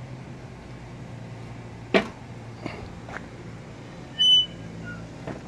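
PK Grill's cast-aluminium lid being opened: a sharp metallic click about two seconds in, a couple of lighter knocks, then a short high squeak just past four seconds.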